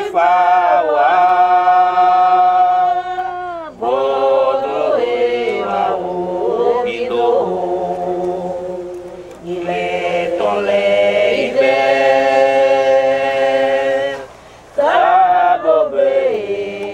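Unaccompanied sung chant in long held notes, in four phrases of about four to five seconds each, with short breaks between them.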